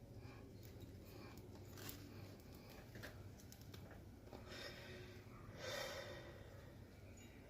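Faint handling noises: scattered light clicks and rustles, with one louder rustle about six seconds in.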